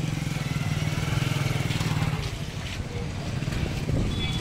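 Motorcycle engine running close by, a low steady putter that eases off a little past the middle and swells again near the end, over general street noise.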